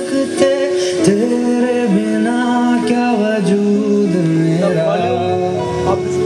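A slow, melodic song with sung vocals playing through a JBL Flip 3 portable Bluetooth speaker during an indoor sound test.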